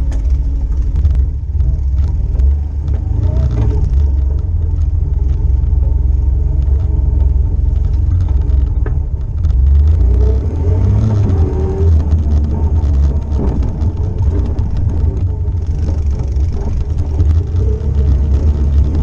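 ATV (four-wheeler) engine running under way, a loud, steady low rumble.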